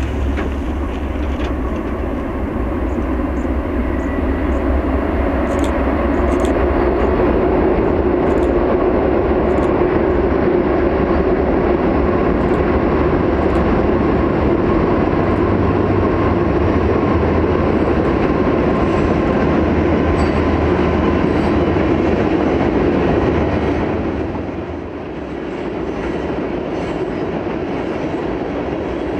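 BNSF freight train crossing a steel truss bridge: diesel locomotives with a low rumble, then covered hopper cars rolling over with steady wheel and rail noise and scattered clicks. The sound eases off a little near the end as the cars roll on.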